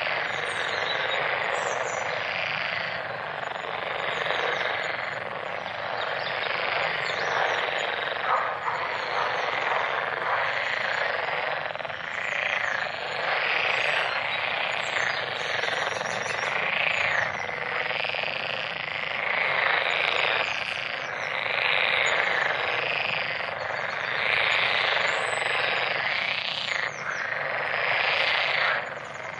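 A dense chorus of many frogs calling together, a continuous pulsing mass of croaks that swells and dips every second or two, with scattered short higher chirps above it.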